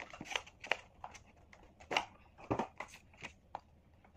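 Small cardboard box being handled and opened: an irregular run of short clicks, taps and rustles as the outer sleeve is worked off and the inner box pulled out.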